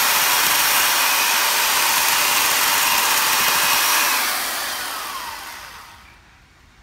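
Small corded electric chainsaw running steadily, then switched off about four seconds in, its whine falling in pitch and fading as the chain coasts to a stop.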